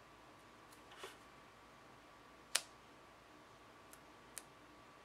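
Handling of a paper planner sticker and page, with three short sharp clicks, the loudest about halfway through, as a label sticker is pressed into place.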